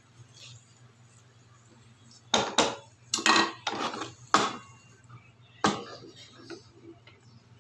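Wooden spatula scraping and knocking against a frying pan as paneer cubes are turned in it: a quiet start, then a run of about six short, sharp strokes in the middle.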